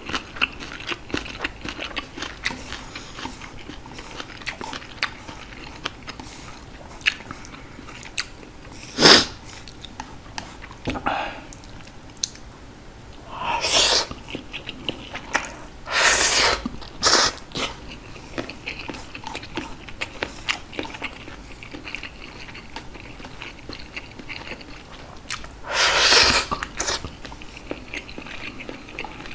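Close-miked chewing and biting of green onion kimchi and Jjapaghetti noodles: many small wet mouth clicks and crunches, broken a few times by louder, longer eating sounds lasting about a second.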